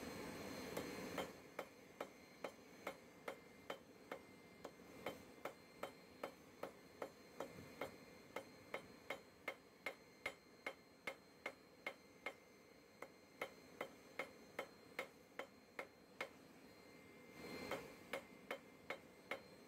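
Hand hammer striking a steel bar on an anvil in a steady rhythm, about two to three blows a second, each a sharp metallic clink with a short ring, as the bar's end is tapered and drawn out. The blows pause briefly about 17 seconds in, then a few more follow.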